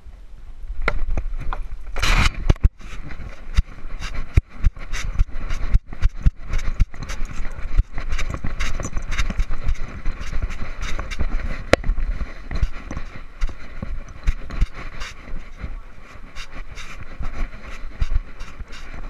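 Handling noise from a moving GoPro camera: a dense, irregular run of knocks, clicks and rubbing over a steady rumble. The loudest burst comes about two seconds in.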